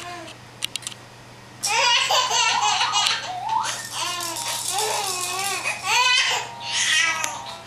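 Baby of about five months laughing in repeated high-pitched bursts of giggles, starting about a second and a half in. A few light clicks come before the laughter.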